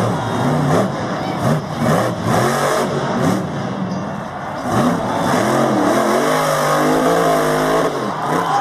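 Monster truck's supercharged V8 engine revving hard, its pitch rising and falling over and over as the driver works the throttle through wheelies and nose stands.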